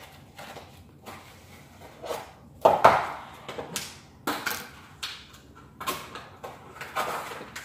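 Small plastic building bricks being handled and pressed together, giving irregular clicks and knocks, the loudest a cluster about three seconds in.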